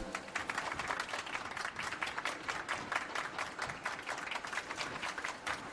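Applause: many overlapping hand claps at an even level.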